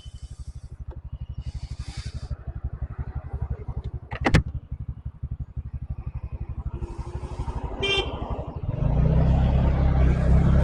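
A motorcycle engine runs with a rapid, steady low pulsing beat. There is a sharp loud sound about four seconds in and a brief high horn beep near eight seconds. The engine then gets clearly louder as it pulls harder near the end.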